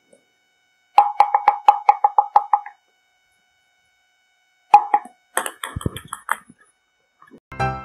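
Ping pong ball bounced repeatedly on a lightweight toy ping pong paddle: a quick run of about ten ringing taps. About five seconds in there is a shorter cluster of taps and clatter, and piano music starts near the end.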